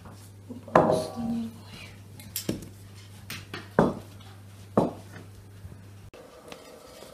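Tableware clinking as plates, glasses and cutlery are set out on a table: a loud ringing clink about a second in, then several shorter, sharper clinks over the next few seconds.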